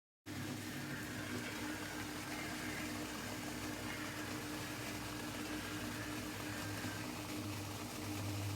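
Steady mechanical hum with a hiss, cutting in suddenly just after the start: a small motor or fan running.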